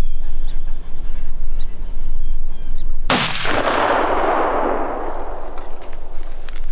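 A single gunshot about three seconds in: a sharp crack followed by a long echo trailing off over about three seconds. No clear sound of a hit follows, which the hunters take as a sign the shot may have missed.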